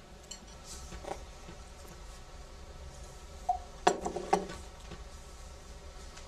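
Metal spoon clinking against a ceramic bowl: a quick run of sharp clinks a little past the middle as the spoon is let go into the bowl, with a fainter knock earlier.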